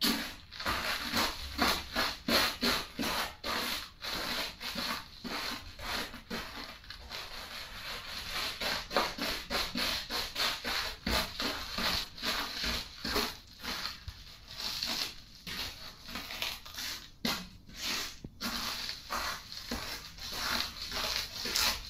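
Chips crunching and crackling under Converse sneakers as they are stepped on and ground, a dense run of sharp crackles in quick, irregular succession.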